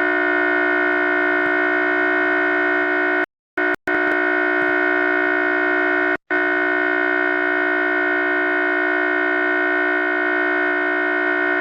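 Ceiling fan motor running at low speed with a loud, steady electrical hum made of many fixed tones. The sound cuts out completely for a moment twice just after three seconds in, and once about six seconds in.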